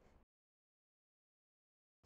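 Near silence: the soundtrack drops to digital silence after a brief fading tail at the very start.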